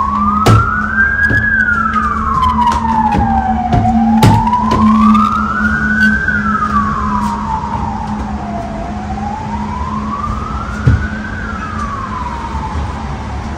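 An emergency vehicle's siren wailing, its pitch rising and falling slowly about every five seconds, two and a half times. Scattered sharp knocks from a flat mop striking the ceiling and wall sound through it.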